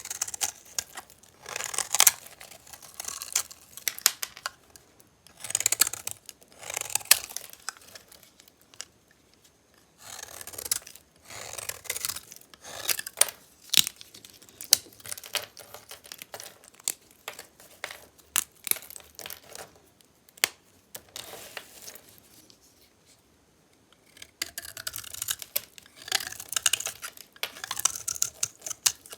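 Blade cutting through dry, metallic-painted bar soap: a series of crisp, crackling slicing strokes with sharp clicks as pieces break away, separated by short pauses, with a longer pause about three quarters of the way through.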